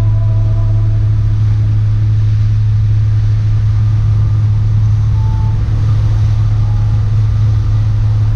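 Motorboat under way: the boat's engine runs steadily as a loud, even low drone, with a haze of wind and water noise over it.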